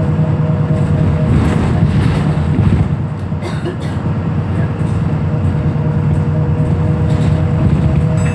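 Cabin sound of a VDL SB200 Wright Pulsar single-deck bus under way: the diesel engine drones steadily with road noise and a thin steady whine. The uploader describes the bus as limping, with bits of kickdown from its automatic gearbox. The sound eases for about a second and a half, around three seconds in, then picks up again.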